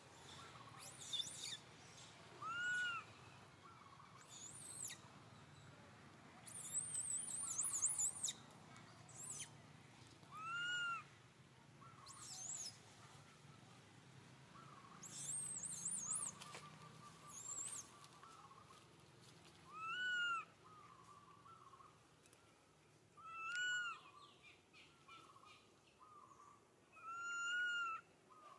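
Infant long-tailed macaque giving short whimpering coo calls that rise and fall in pitch, five times, several seconds apart: the lost-contact cry of a baby monkey calling for its mother. High warbling bird chirps come in between.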